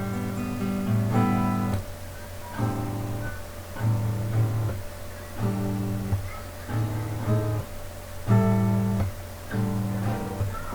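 Background music of acoustic guitar strumming chords in a steady, repeating rhythm.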